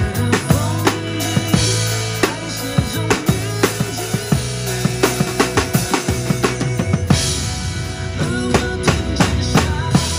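Acoustic drum kit played live over a recorded pop-song backing track: a steady groove of bass drum, snare and rimshot hits, with cymbal crashes about two seconds in, near seven seconds and near the end.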